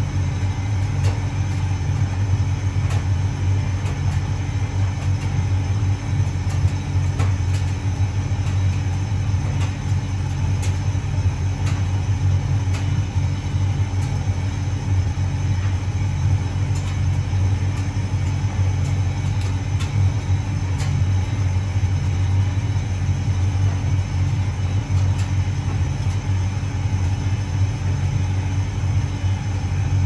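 Hotpoint 9327 vented tumble dryer running a low-heat drying cycle: a steady motor hum and drum rumble, with scattered light ticks.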